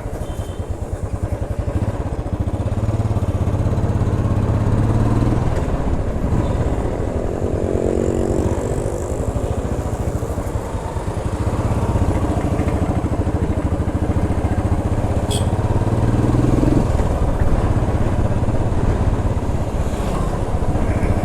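Royal Enfield Classic 350 Stealth Black's single-cylinder engine running through its exhaust, a dense, fast low thump whose pitch rises and falls a few times with the throttle.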